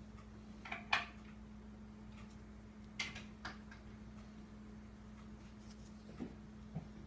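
Short scrapes and taps of a small flat paint brush on paper as rainbow name-art strokes are laid on, the two loudest about one and three seconds in, over a steady low hum.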